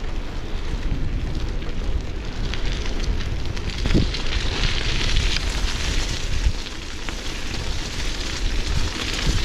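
Wind buffeting the microphone while riding a bicycle: a steady, loud rumbling rush with a few brief knocks.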